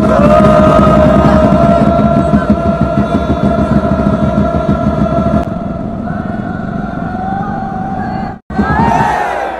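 Loud football supporters' stand noise with a steady, siren-like held tone over it. The tone gets quieter about five seconds in, rises a little, breaks off briefly near the end, then gives way to quick sliding tones.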